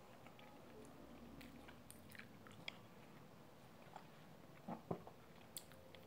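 Faint chewing and small mouth clicks of a person eating, with a couple of slightly louder clicks near the end.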